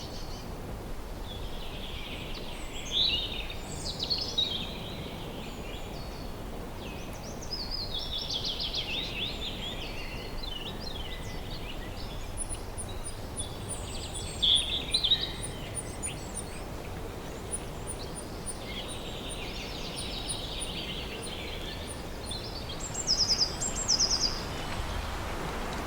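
Several small birds singing and calling in short, high trills and chirps over a steady background noise, with a run of very high, rapid ticks through the middle.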